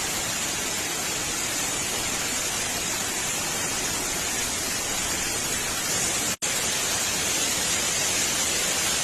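Steady rushing of a river in flood, a dense even noise that cuts out for a split second about six and a half seconds in.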